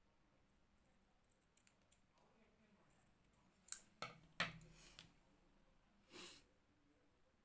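Quiet handwork: a few sharp clicks a little past halfway as metal scissors snip the woolen thread and are put down, then a brief rustle near the end as fingers press the thread onto the paper.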